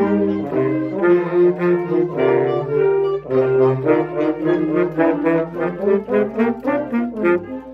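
Wind band horns, brass with a saxophone among them, playing a passage together: several notes sound at once, changing in a steady rhythm.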